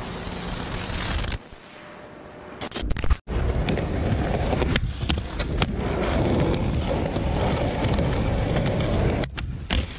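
Skateboard wheels rolling over concrete: a steady rumble with occasional sharp clicks, starting about three seconds in. Before it, a burst of hiss lasts about a second and a half.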